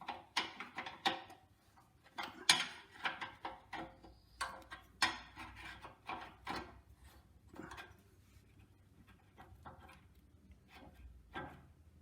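Irregular clicks and knocks of a socket wrench and hand tools on metal as the radiator's two mounting nuts are worked loose, busy for most of the time and thinning out near the end.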